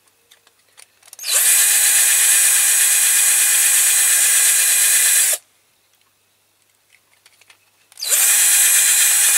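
Electric drill running in two bursts, about four seconds and then about a second and a half, each starting with a quick spin-up. It is drilling the head off the rivet of a diecast toy tractor to free the washer.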